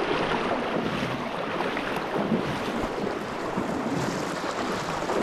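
Steady rushing of a river's flowing water, an even wash of noise with no let-up.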